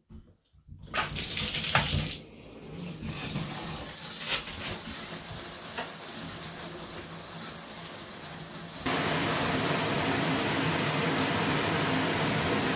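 Water spraying from a Waterpik PowerPulse hand-held shower head. The hiss starts about a second in, runs unevenly with splashes, then turns louder and steady about nine seconds in.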